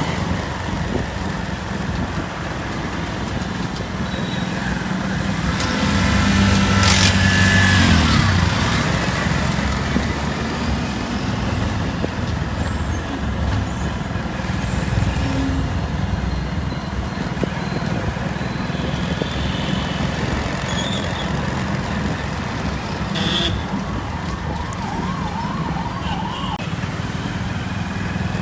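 Street traffic: road vehicles running and passing in a steady hum. One louder vehicle goes by with a horn-like tone about seven seconds in, and a short warbling tone sounds near the end.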